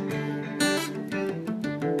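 Acoustic guitar music: a run of plucked notes with some strummed chords.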